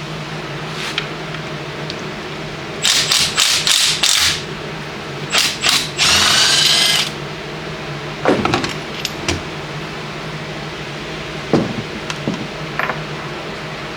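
A handheld power tool run in several short bursts and then one longer run of about a second, over a steady hum. A few knocks follow later.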